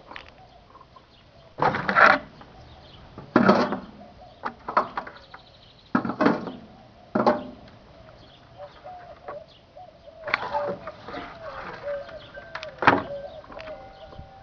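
Microwave oven arcing inside as it is run to destruction: about six loud, short crackling bursts with smaller snaps between them. A faint wavering tone runs underneath.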